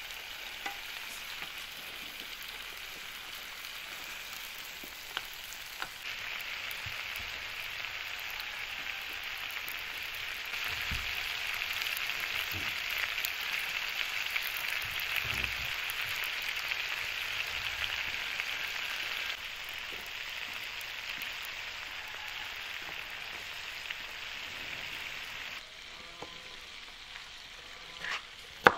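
Chicken drumsticks frying in oil in a wide non-stick pan, a steady sizzle that grows louder about six seconds in and eases off in the last part.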